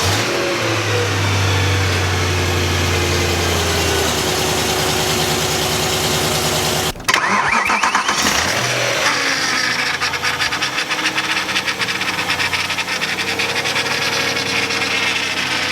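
BMW M3 engine starting and then idling with its serpentine belt removed, running without the weird noise it made with the belt on, which points to either the power steering pump or its pulley. The sound breaks off briefly about seven seconds in, then the engine runs on with a shift in pitch.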